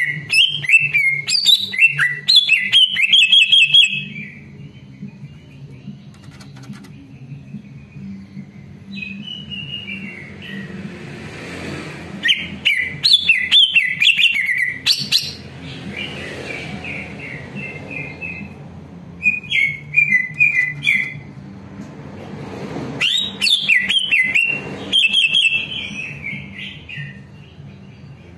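Male greater green leafbird (cucak ijo) singing in several loud bursts of rapid, varied chirps and whistles, with pauses of a few seconds between phrases.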